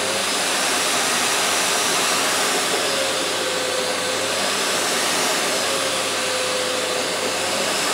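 Vax VCC-08A commercial tub vacuum cleaner's 800 W motor running steadily at full power just after being switched on: it has reset out of hush mode. Its whine dips and rises slightly in pitch a few times.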